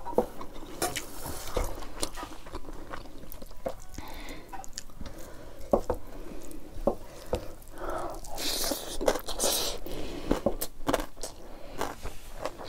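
Close-miked chewing of a mouthful of rice and dried buffalo meat (sikuti), a run of many small wet clicks and crunches, with fingers mixing the rice and meat on a steel plate.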